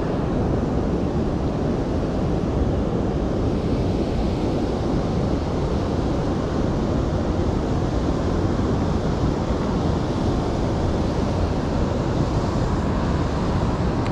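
Steady rushing noise of wind buffeting the microphone, with flowing river water underneath, even throughout.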